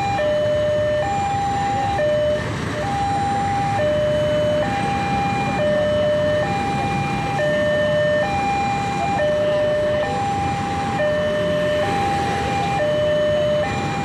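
Railway level-crossing warning alarm sounding a two-tone signal, high and low tones alternating, each a little under a second long, over the running engines of motorcycles and cars.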